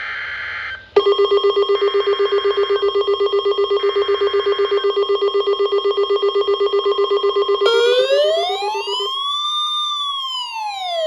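Emergency alert attention tones: a loud, rapidly pulsing alarm tone of steady pitch, with short buzzing bursts in the first few seconds. Near the end a wailing siren comes in, rising and falling slowly, and the pulsing stops about a second later.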